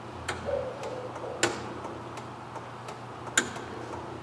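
Switches for a wrecker's roof light bar clicking as the lights are tried: a few sharp clicks, the loudest about two seconds apart, with fainter ticks between, over a steady low hum.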